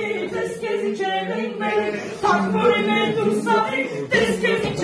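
A woman and a man singing a song together in Armenian without instruments, in long held, sliding notes.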